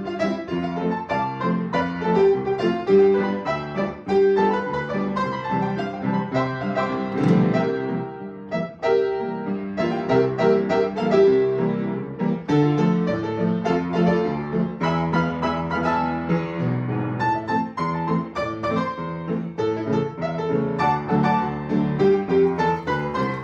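Solo piano playing a lively piece in a run of short, separate notes.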